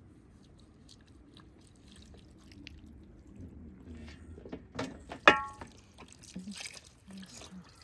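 Water poured from a kettle splashing over a raw lamb carcass on a metal tray as it is rinsed by hand, mostly in the second half. About five seconds in comes a sharp knock that rings briefly, the loudest sound.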